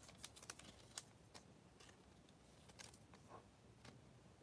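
Near silence, with a few faint clicks and light rustles of trading cards and a card pack being handled.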